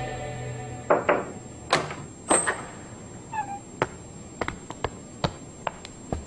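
A few knocks on a wooden door, a short creak as the door swings open, then a series of light, sharp footsteps crossing the floor.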